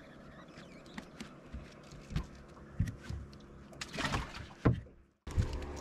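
Scattered knocks, clicks and rustles of a landed fish being handled in a landing net on a boat deck, with a louder burst of rustling about four seconds in.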